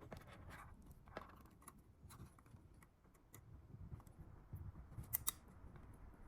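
Faint small clicks and handling noise of hands fitting a wire connector onto pins, with two sharper clicks about five seconds in, over a low room hum.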